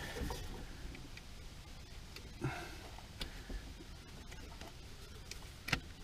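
A few faint clicks and light taps from hands working the throttle cable and linkage of a Yamaha G16 golf cart, with the sharpest click near the end.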